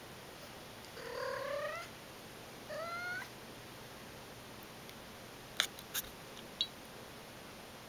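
Domestic cat meowing twice, each call rising in pitch, the first about a second long and the second shorter. A few seconds later come three short sharp clicks.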